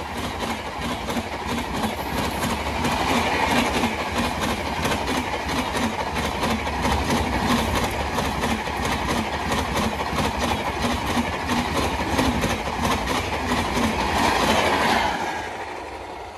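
Passenger coaches of an Indian Railways express train passing close by at high speed, the wheels beating a fast, even clickety-clack over the rail joints. About fifteen seconds in, the last coach goes past and the sound quickly falls away.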